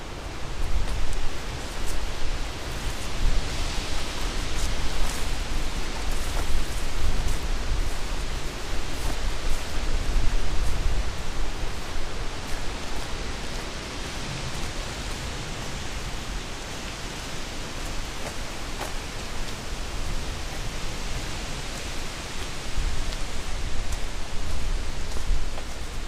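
Wind gusting through trees, rising and falling in surges, with a low rumble of wind buffeting the microphone.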